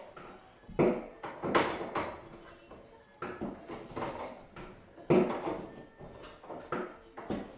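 Irregular knocks and bangs from work on a sectional garage door, about half a dozen, each with a short ring, the loudest about a second and a half and about five seconds in.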